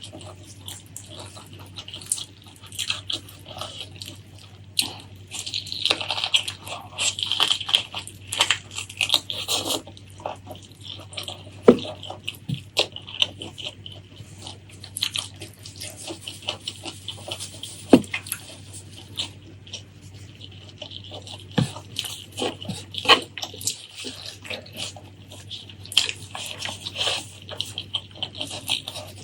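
Close-miked wet chewing and lip-smacking of someone eating pork leg curry with rice, made up of many quick irregular clicks and sticky, moist mouth sounds.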